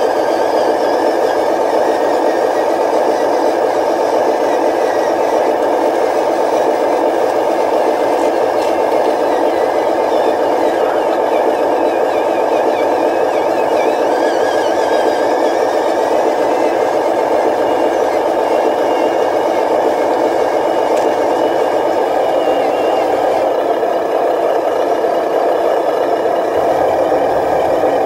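Simulated truck engine sound from a radio-controlled dump truck, running steadily at an even level, thin in the bass as from a small speaker.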